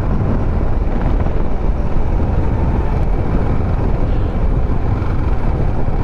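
Motorcycle under way on the road: steady engine and wind noise over the microphone.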